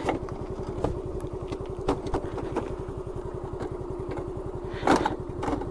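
Scooter engine idling with a fast, even pulse, with a few light clicks and a brief louder noise about five seconds in.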